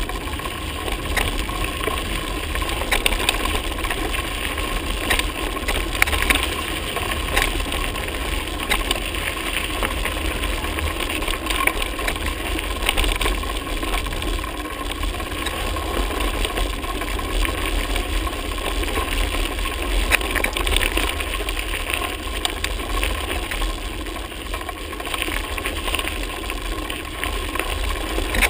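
Mountain bike riding over a rough dirt and rock track: steady tyre noise with the bike rattling and knocking over the bumps, and a low wind rumble on the microphone.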